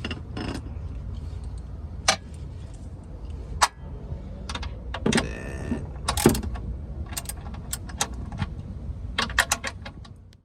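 Scattered metal clinks and clicks of a hand wrench working a car's oil drain plug loose, with a quick cluster of clicks near the end, over a low steady background hum.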